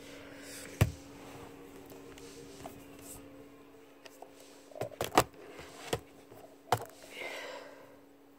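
Handling noise close to the microphone: a sharp knock about a second in, then four more knocks and clicks a little past halfway, as makeup things are picked up and set down. A steady low hum runs underneath.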